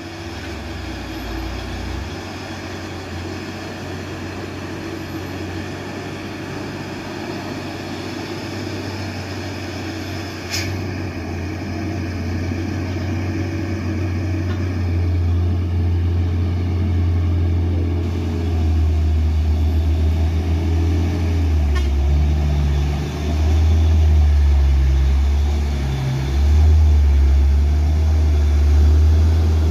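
Hino Ranger FM 260 JD truck's diesel engine pulling up a steep dirt track, a steady low drone that grows louder as the truck comes closer. There is a single sharp click about ten seconds in, and near the end the engine note rises and dips as it works harder.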